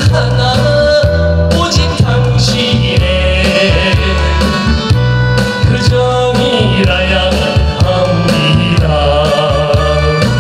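A man singing a Korean gayo song into a handheld microphone over loud backing music with a steady bass and drum beat.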